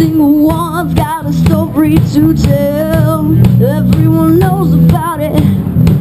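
Live rock trio playing loudly through a PA: a young vocalist sings a wavering melody over a repeating low guitar-and-bass riff, with drums.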